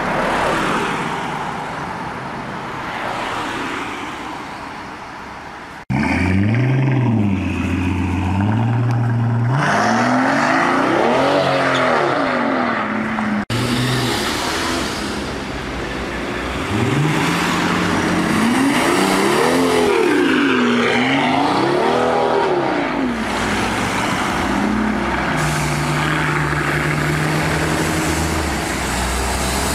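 Street traffic noise for the first few seconds, then the Mercedes-Benz S65 AMG's twin-turbo V12 revving in repeated rises and falls of pitch, several blips in a row, settling to a steady low run near the end.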